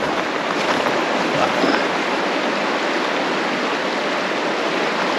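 Fast-flowing water of the River Findhorn running over a rocky riffle: a steady, even rush of water.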